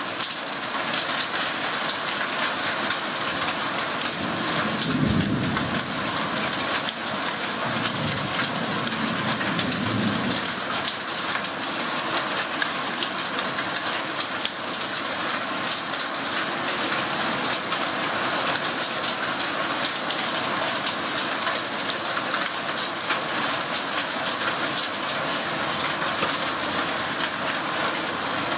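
Heavy rain pouring and pattering densely on the ground and foliage. A low rumble of thunder comes about four seconds in and again around eight to ten seconds.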